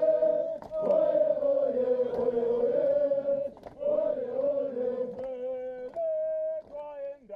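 A large crowd singing a chant together, many voices holding long notes that slide between pitches, phrase after phrase with short breaks between them.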